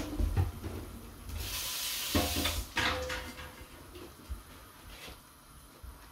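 Kitchen handling sounds from a water-soaked clay cooking pot. A knock, then a rush of water lasting about a second, then a few clunks as the pot is lifted and moved.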